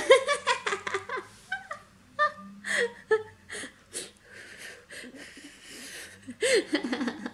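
A young child giggling in short bursts, loudest in the first second and again near the end, with airy puffs of breath from someone blowing on her freshly painted nails to dry them.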